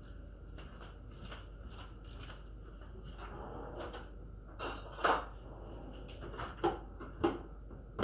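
A handful of short, sharp knocks and clicks, the loudest a little after five seconds in and again near the end, over a low steady hum.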